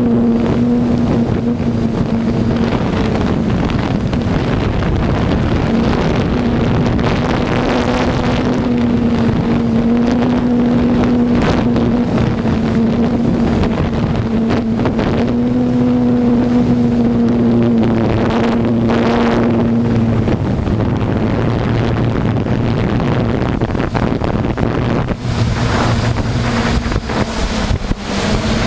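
Corn harvesting machinery, most likely a combine harvester, running steadily: a constant mechanical drone with a wavering hum that drops away about twenty seconds in while the machine noise carries on.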